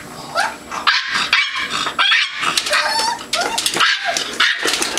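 Miniature Pinschers yipping and whining excitedly, mixed with a quick clatter of clicks and knocks.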